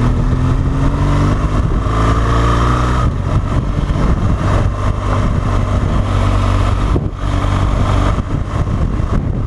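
BMW R1200 GS boxer-twin engine accelerating, its pitch rising over the first three seconds, then running on steadily with a brief dip about seven seconds in.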